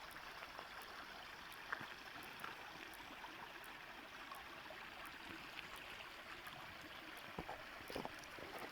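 Small stream running, a faint even rush of water, with a few light clicks and knocks, the strongest near the end.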